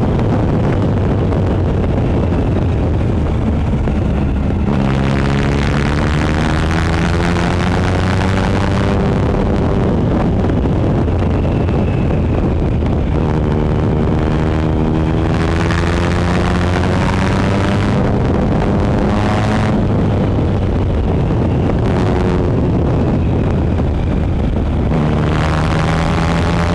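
2013 Triumph Speed Triple 1050's inline three-cylinder engine breathing through a Competition Werks GP slip-on exhaust, pulling hard three times with the pitch climbing steadily and then dropping off between pulls. Steady wind noise on the microphone.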